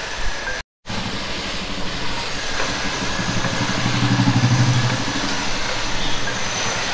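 A motor vehicle's engine passes close by, swelling from about three seconds in and fading again over a steady background of street noise. The sound cuts out completely for a moment near the start.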